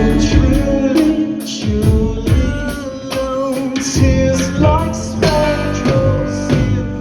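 Rock music with singing over guitar and drums.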